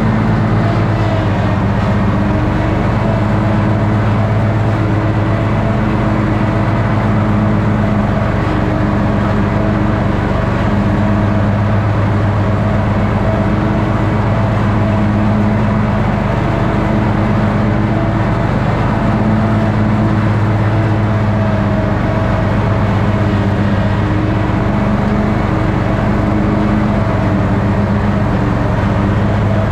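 Toro ride-on mower's engine running steadily under load while mowing grass, its pitch wavering slightly up and down.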